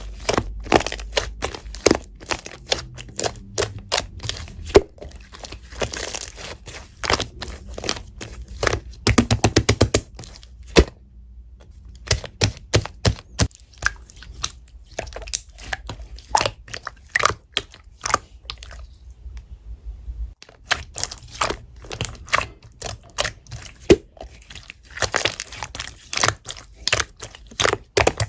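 Slime being pressed, stretched and squeezed, giving dense sticky clicks and pops, with a quick run of pops about nine seconds in and a couple of short pauses.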